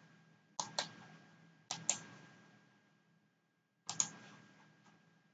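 Sharp clicks at a computer as text is selected and copied, in three close pairs, the last after a longer pause, over a faint steady hum.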